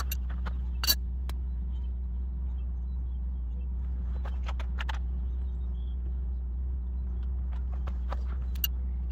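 A steady low rumble throughout, with a few sharp metal clinks of hand tools on asphalt, the loudest about a second in as the adjustable wrench is set down, and lighter tool ticks later.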